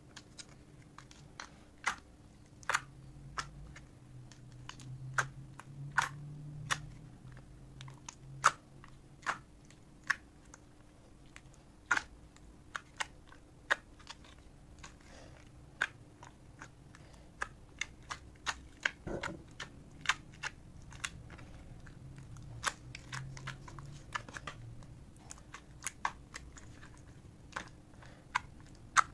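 Clear glitter slime being pressed, folded and squeezed by hand, giving irregular sharp pops and clicks, roughly one or two a second, with soft squishing between.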